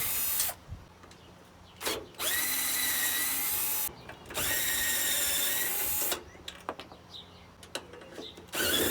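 Power drill-driver spinning out the 1/4-inch screws of a mower's back plate, in about four short runs of roughly two seconds each with brief pauses between.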